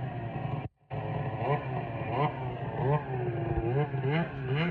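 Snowmobile engine revved in quick, uneven throttle blips, its pitch rising and falling again and again. The sound drops out completely for a moment under a second in.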